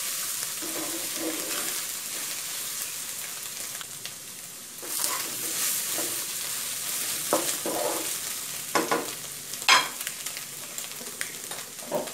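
Fish balls and bamboo shoot strips sizzling in oil in a wok over high heat, with a steady hiss, while a wooden spatula scrapes and tosses them in separate strokes, the strongest about ten seconds in.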